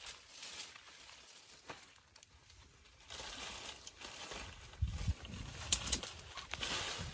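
Leafy shrub branches rustling and crackling as they are pulled and leaves are picked, starting about three seconds in, with a low rumble and a few sharp cracks near the end.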